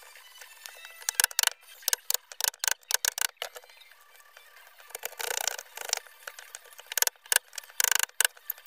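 Wood chisel paring by hand in a dovetail socket: irregular sharp clicks and ticks of steel on wood, with two longer scraping cuts about five seconds in and near the end.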